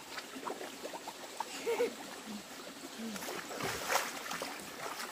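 Water splashing in a shallow stream as a child drops down into it and thrashes about, loudest about four seconds in, over the steady run of the stream.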